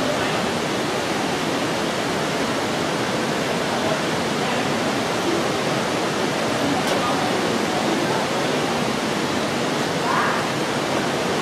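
Steady, even rush of falling water, with no breaks or rhythm.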